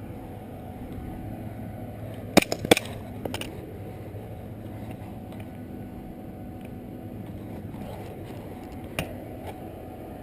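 A few sharp snaps from airsoft guns firing: two quick loud ones about two and a half seconds in, a fainter one just after, and another single snap near the end, over a steady low background rumble.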